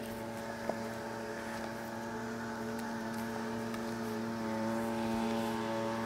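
Honey bees buzzing around an opened hive: a steady, even hum that grows slightly louder, with a faint click about a second in.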